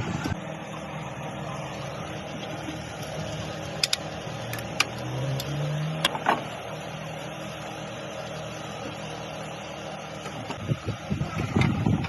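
Car engine running at idle with a steady hum. About five seconds in the revs rise briefly, and a few sharp clicks come through.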